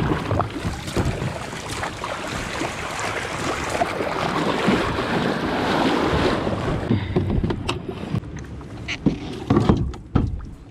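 Small waves washing and fizzing around a MAG M2 plastic pedal kayak as it is pushed out through shallow surf, with wind on the microphone. After about seven seconds the water noise drops away and a few sharp knocks and bumps on the kayak's hull and fittings follow.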